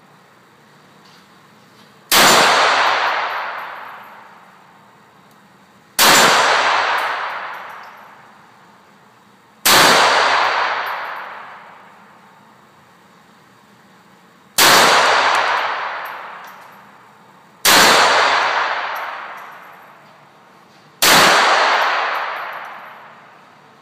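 Six single shots from a GSG 1911 .22 LR pistol, fired slowly one at a time, three to five seconds apart. Each sharp crack echoes and dies away over about two seconds in the reverberant indoor range.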